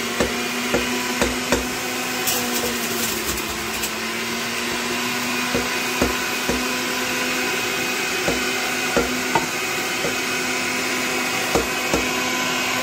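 Electric juicer motor running steadily while celery stalks are pushed down its feed chute, with irregular sharp cracks and knocks as the stalks are shredded.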